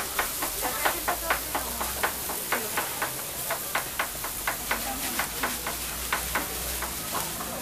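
Skewered chicken barbecue sizzling on a hot open grill, with frequent sharp, irregular crackles and pops over a steady hiss.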